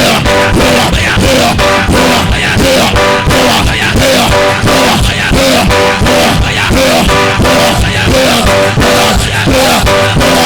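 Loud band music with guitar over a steady, fast beat.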